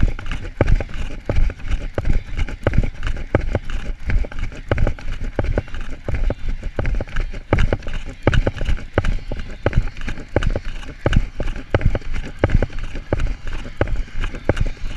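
A runner's footfalls at a fast running pace, about three strides a second, close to the camera he carries, each landing a jolt.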